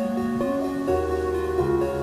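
Instrumental background music: a melody of held notes stepping in pitch over a low bass line.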